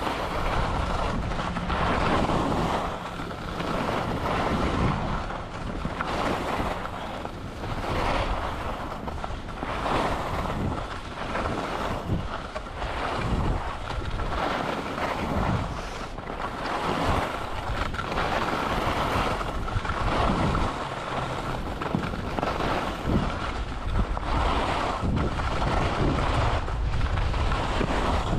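Wind rushing over the microphone of a skier's camera during a run, with skis hissing over the snow in swells every second or two.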